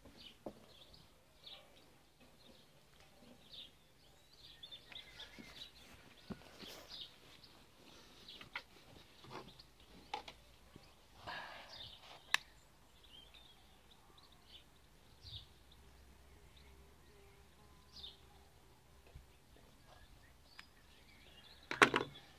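Birds chirping faintly in short calls, with a few scattered clicks. The loudest sound is a short cluster of sharp knocks near the end.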